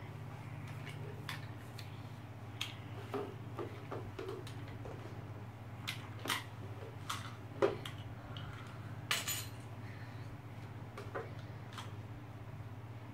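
Scattered clicks and clinks of small hard toy parts being handled and knocked together, over a steady low hum.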